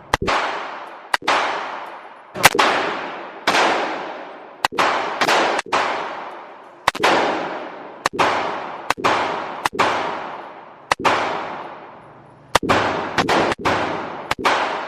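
Gunshots at an indoor range: about twenty single shots at uneven intervals, often about a second apart and sometimes in quick pairs. Each crack is followed by a long echoing decay from the enclosed range.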